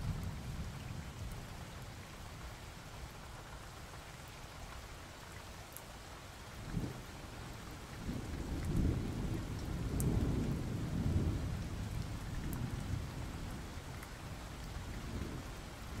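Steady rain with rolling thunder: a brief low rumble about seven seconds in, then a longer rumble swelling and fading from about eight to twelve seconds.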